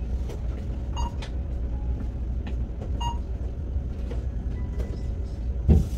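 Steady low hum of a shop's self-checkout area, with two faint short electronic beeps about a second in and about three seconds in, and a low thump near the end.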